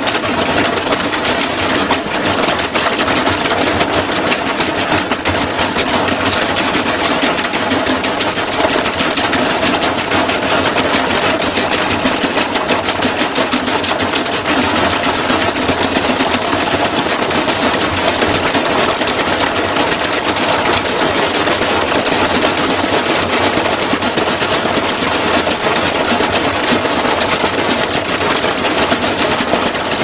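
Washing machine running itself to destruction: rapid, continuous hammering and rattling over the motor's running sound, the machine shaking violently.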